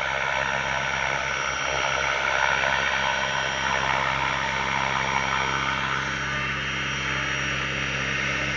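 Several T-Rex 500, 600 and 700 RC helicopters flying together: a steady whine of motors and rotor blades, with several pitches sounding at once over a hiss.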